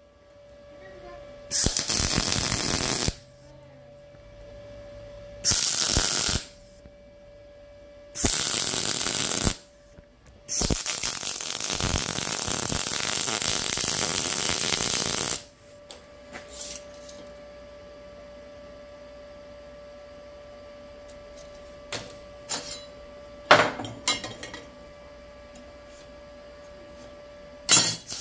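Arccaptain MIG200 welder's arc crackling as tack welds are laid on steel square tubing: three short welds of about a second each, then a longer one of about five seconds. A steady hum runs between and after the welds, with a few clicks near the end.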